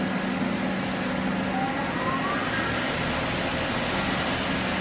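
Doosan PUMA 240MB CNC lathe spindle running up during a dry run: a thin whine rises in pitch about a second and a half in, over the machine's steady hum, as the spindle accelerates toward 2500 RPM.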